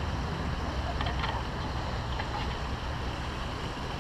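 Wind buffeting the camera's microphone in a steady low rumble, over the splashing of fountain jets.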